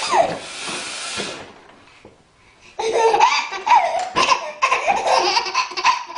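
A baby laughing in repeated short bursts, with a belly laugh among them, from about three seconds in. Before that comes a short breathy hiss, then a pause of about a second and a half.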